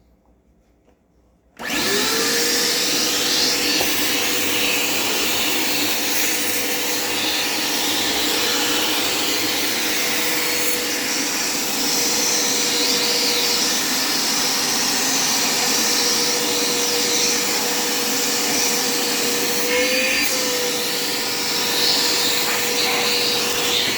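Dirt Devil Quick Power vacuum cleaner switched on about a second and a half in, then running steadily with a constant motor whine as it sucks through its hose. The whine's pitch wavers briefly near the end.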